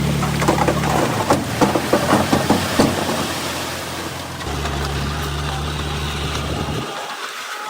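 Heavy diesel earthmoving machinery running, with a burst of rattling knocks from about one to three seconds in. The engine's low hum cuts out abruptly near the end.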